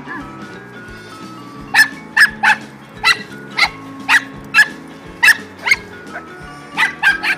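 A dog barking in quick, sharp barks, about a dozen of them roughly twice a second, starting a couple of seconds in, over background music.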